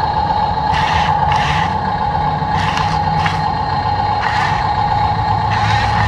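Radio-controlled toy construction vehicles driving, their small electric motors and gearboxes giving a steady whine with a low rumble, and short raspy flares every half second or so.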